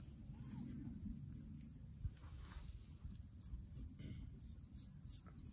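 Straight razor scraping through lathered stubble in a quick series of short, crisp rasps in the second half, over a low rumble.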